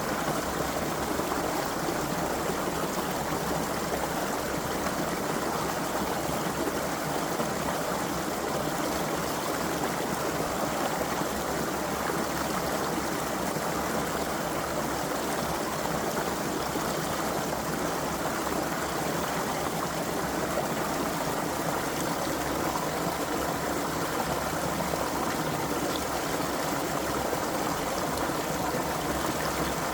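A small creek flowing, an even, steady rush of running water.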